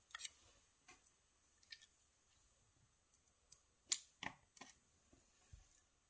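Faint, scattered small metallic clicks and taps of steel tweezers working in a lock cylinder housing to pick out pin-stack drivers, about eight in all, the loudest one about four seconds in.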